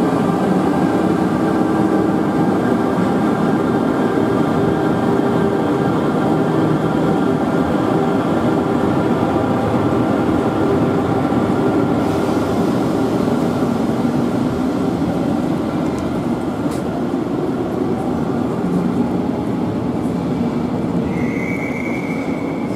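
Train hauled by an electric locomotive rolling through the station: a steady rumble with a hum of several steady tones that weakens as the train draws away. A short high squeal near the end.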